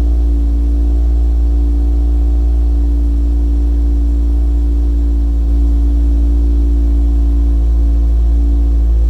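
2022 Subaru BRZ's 2.4-litre flat-four boxer engine idling steadily through a Perrin cat-back exhaust just after a cold start, a deep, even exhaust drone. It gets slightly louder about five and a half seconds in.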